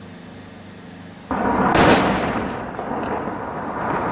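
Demolition blast of explosive charges set around a large building: a sudden loud boom about a second in, loudest a moment later, then a long rolling rumble as the structure comes down.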